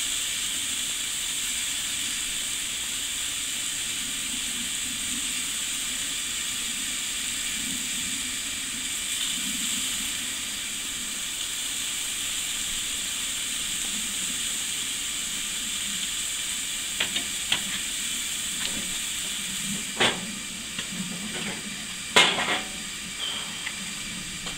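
Hamburger patties sizzling steadily on a gas grill as barbecue sauce is brushed on. Near the end come a few short knocks, then a louder clunk about 22 seconds in as the grill lid is shut.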